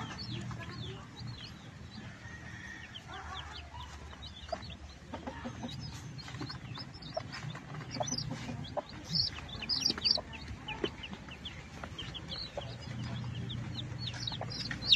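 Native chicken chicks peeping over and over in short, high cheeps.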